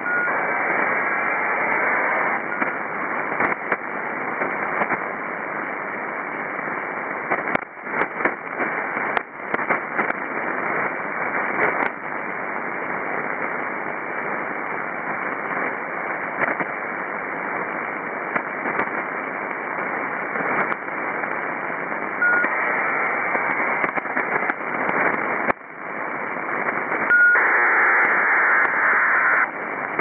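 HFDL (ACARS over HF) data bursts on 6529 kHz heard through a shortwave receiver: steady band hiss with occasional static clicks, broken three times by louder buzzing digital bursts, each opening with a short beep.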